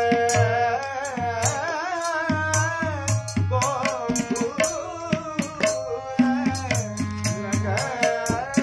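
A man singing a classical Kumauni Holi song in a wavering, ornamented line over the steady held chords of a harmonium he plays. Tabla strokes keep a steady rhythm, with deep bass-drum thuds among sharp treble strokes.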